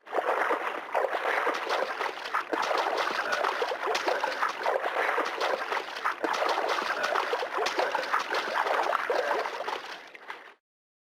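Water splashing and trickling: a dense, continuous patter of small splashes that cuts off abruptly about ten and a half seconds in.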